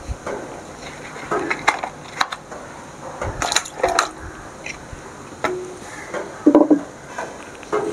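Kitchen handling sounds: short knocks, clinks and rustles at irregular intervals, some with a brief ring.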